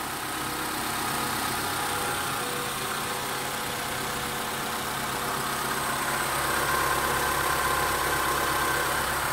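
Honda B16A2 1.6-litre VTEC four-cylinder engine idling steadily, with a faint higher whine coming up from about two-thirds of the way in.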